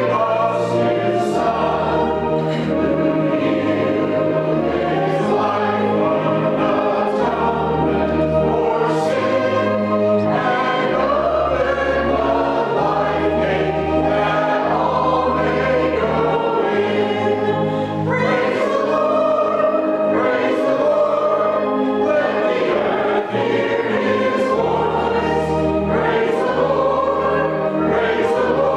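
Small mixed church choir singing together from hymnals, over steady low bass notes of an accompaniment that change every second or two.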